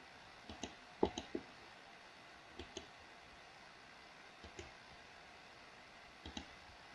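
Computer mouse button clicks, mostly in quick pairs, coming in five brief groups spread over several seconds.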